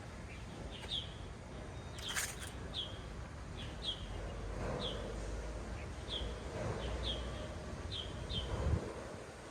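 A bird repeating short, high, downward chirps about once a second over a steady low outdoor rumble, with a brief scratchy noise about two seconds in.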